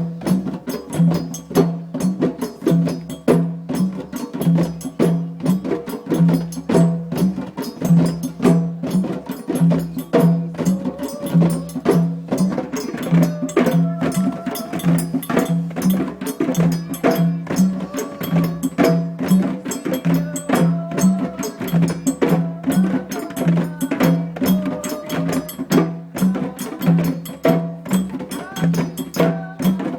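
Djembe drumming in a steady repeating rhythm: a low bass stroke falls a little more than once a second, with quicker sharp slaps and tones between. Faint higher pitched notes come and go over the drum.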